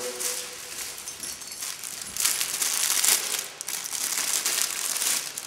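Aerosol spray paint can hissing in several bursts of a second or so, with short gaps between.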